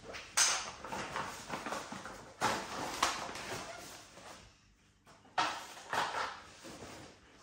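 A fabric carry bag rustling while a foldable camping table's leg poles and rolled slatted top are pulled out and set down on a wooden floor, with a handful of separate knocks and clatters.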